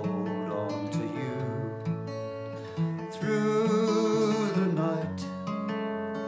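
Song music: acoustic guitar accompaniment, with a louder held note with vibrato over it for about a second and a half in the middle.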